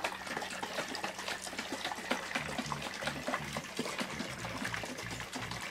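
Borax-and-water solution sloshing inside a lidded glass jar shaken by hand, a rapid irregular run of small sloshes and splashes. The jar is being shaken to dissolve as much borax as it can hold, making a supersaturated solution.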